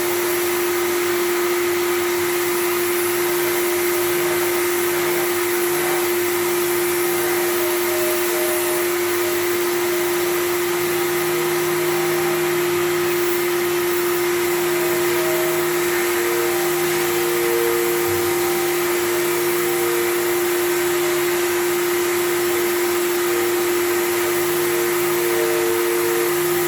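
Power sander running steadily while dry sanding a car's rear bumper: a constant motor hum with a hiss over it.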